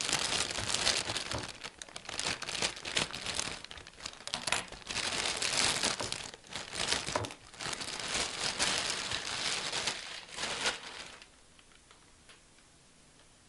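Clear plastic packaging bag crinkling and rustling in irregular bursts as it is handled and pulled off a black metal wire paper towel holder. The crinkling stops about eleven seconds in.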